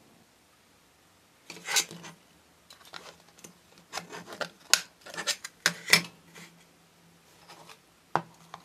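Hands handling the hard plastic parts of a diorama's display base and its battery light switch: rubbing and scraping with a run of sharp clicks, then a single click near the end.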